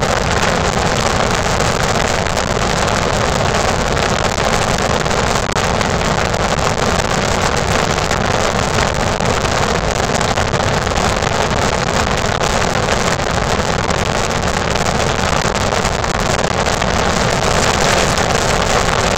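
Steady rushing wind and rolling noise of a vehicle travelling at speed, loud and unchanging.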